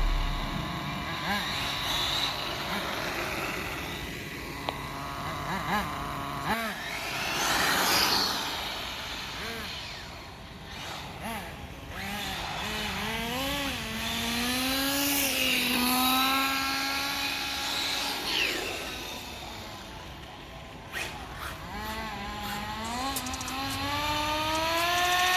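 Radio-controlled cars driving: the motor pitch rises and falls again and again as they accelerate, brake and pass by.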